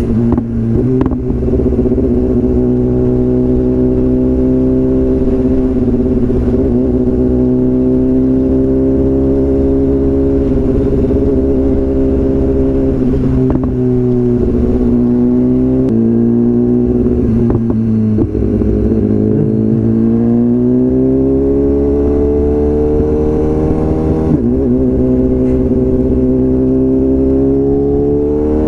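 BMW S1000RR inline-four engine running through a full Akrapovič exhaust, its pitch rising and falling with the revs. Around the middle the revs drop with a few sharp exhaust pops, then climb steadily again.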